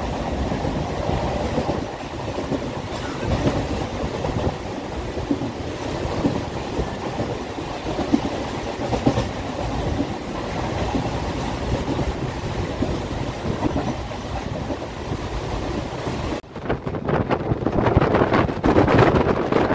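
Suburban electric local train running at speed, heard from inside a carriage at an open window: a steady rumble and clatter of wheels on the rails. About three seconds before the end it becomes louder and choppier.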